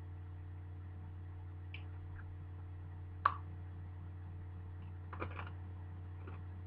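A single sharp crunch of a hard pretzel being bitten about three seconds in, followed by a few faint chewing sounds, over a steady low electrical hum.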